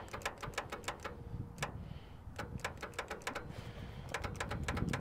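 Rapid, irregular electrical clicking from the starting circuit of an Allis-Chalmers 5050 tractor fed by a jump box, with a short break a second or two in.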